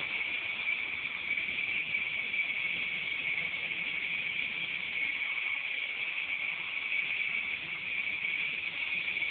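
Small electric remote control helicopter in flight, its motors and rotor blades making a steady high-pitched buzz.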